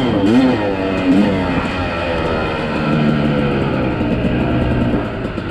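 Dirt bike engine on the trail, revving up and down quickly in the first second or so, then running at a steadier, lower pitch.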